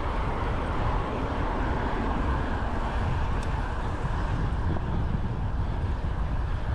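Wind buffeting the microphone of a moving bicycle, mixed with steady road and traffic noise.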